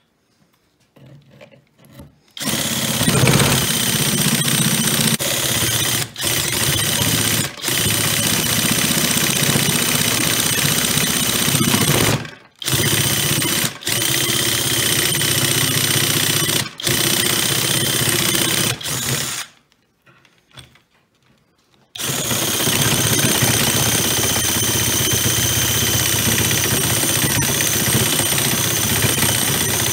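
Drill-driven DIOLD reciprocating-saw attachment cutting a dry birch board: the drill motor's steady whine over the blade's rattling, clattering strokes. It stops briefly several times, pauses for about two seconds past the middle, then starts cutting again.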